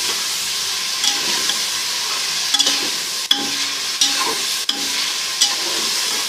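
Beef and ginger-garlic paste sizzling in hot oil in a pressure cooker pot, with a spoon scraping and knocking against the pot as it is stirred, about once a second.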